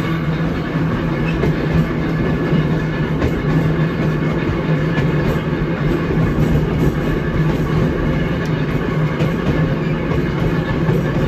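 Electric trolley car rolling along the track: a steady low hum from the car's running gear over a rumble of wheels on rail, with faint irregular clicks.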